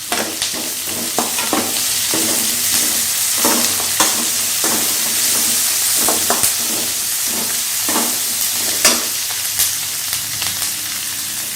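Onions and tomato frying in hot oil in a kadai, a steady sizzle, while a spatula stirs and scrapes the pan with irregular knocks and scrapes.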